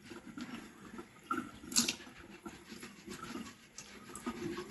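Rough-sided kitchen sponge scrubbing mould off a cheese rind under a running cold tap: repeated rubbing strokes over the water running into the sink, with one sharper scrape about two seconds in.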